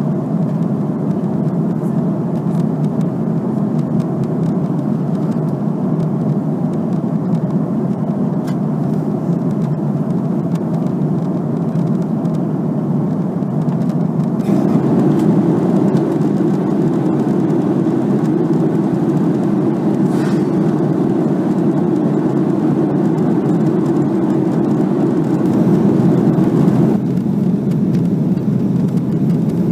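Steady cabin noise inside an Airbus A330-202 in flight: the rush of the jet engines and the airflow past the fuselage, heard through the window seat. It grows louder and brighter about halfway through and falls back a few seconds before the end.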